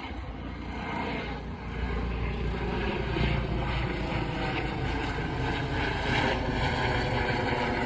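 Helicopter flying overhead, its rotor and turbine engine noise growing louder over the first two seconds as it comes closer, then holding steady.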